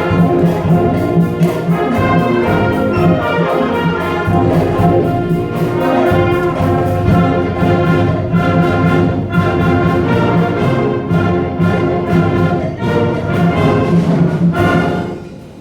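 A band at band camp playing a piece with brass and a steady percussion beat. The music stops near the end.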